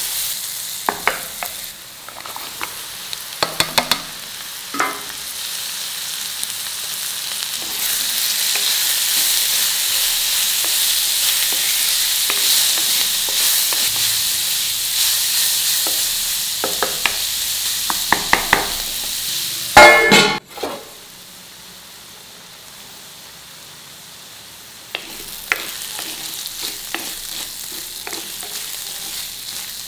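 Diced chayote and onion sizzling in hot oil in a kadai, stirred with a wooden spatula that knocks and scrapes against the pan at intervals. About two-thirds of the way through comes a loud cluster of knocks, after which the sizzle drops low for a few seconds and then picks up again.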